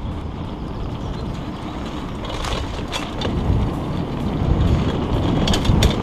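Wind buffeting an action camera's microphone while a bicycle is ridden fast over a dirt path, a low rumble that grows louder as speed picks up, with a few sharp clicks and rattles from the bike over bumps.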